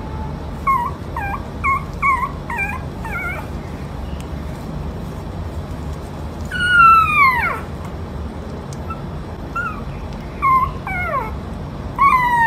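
Puppy whimpering and yipping: a run of short high cries, then about halfway one long falling howl-like cry, the loudest, then a few more short cries near the end.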